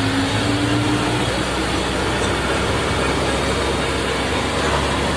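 Engine and road noise heard from inside a vehicle climbing a mountain road: a steady low drone under an even rush, with a faint tone rising in pitch in the first second or so.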